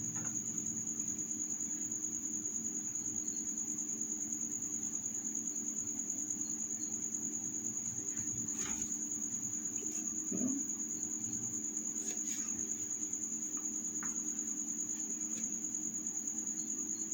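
A steady, high-pitched trill pulsing rapidly and evenly, over a low steady hum.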